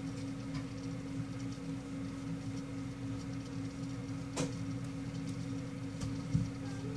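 Steady low mechanical hum, with a sharp click about four seconds in and a short dull thump near the end.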